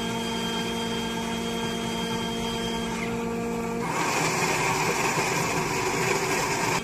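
Self-serve hot-drink dispensing machine running as it fills a paper cup with a frothy drink: a steady motor hum that turns louder and rougher about four seconds in, then cuts off suddenly.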